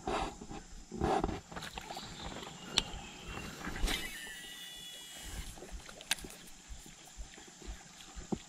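Baitcasting reel's spool whirring briefly, about four seconds in, as a lure is cast, among a few sharp clicks and knocks of handling.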